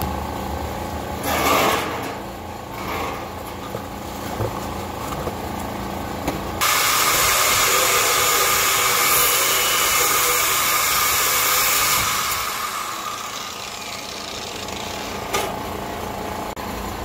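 A power tool cutting out a rusted steel body panel on a VW T25 campervan: a loud, steady, high-pitched hiss that starts abruptly about six and a half seconds in, runs for about five seconds and then fades away. A couple of short bursts of the same kind of noise come in the first few seconds.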